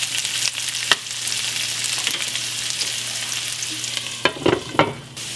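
Bacon frying with diced turnip and carrots in a deep sauté pan, a steady sizzle. There is a sharp click about a second in and a few knocks near the end.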